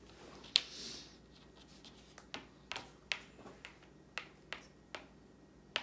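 Sharp taps and clicks of Monopoly pieces on the cardboard game board: one loud click about half a second in, then a string of lighter taps about every half second.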